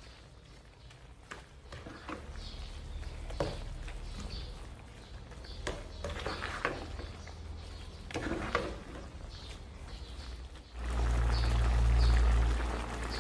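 A spatula stirs thick coconut-milk curry in a nonstick pan, with scattered scrapes and soft knocks. About eleven seconds in, a louder steady bubbling of the simmering curry takes over, with a low rumble.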